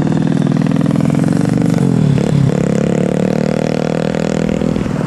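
A bus's diesel engine running hard as it passes close by. The revs drop briefly about two seconds in, then pick up again.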